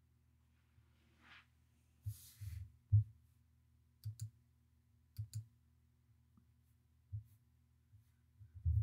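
Soft scattered clicks and low thumps close to the microphone, several of them in quick pairs, over a faint steady hum, with a short breathy hiss about two seconds in.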